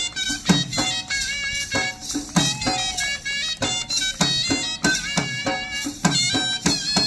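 Indian traditional music: a wind instrument plays an ornamented melody over regular drum strokes with deep, pitch-bending bass beats.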